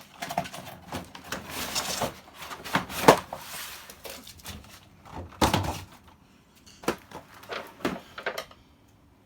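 Handling noise from a toy set's packaging and pieces: a string of separate knocks and thuds with some rustling, the loudest knocks about three and five and a half seconds in, thinning out near the end.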